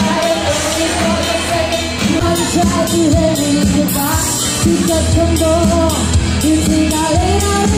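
A live band plays a pop song, with a woman singing into a microphone over guitar and a steady bass line, amplified through a PA.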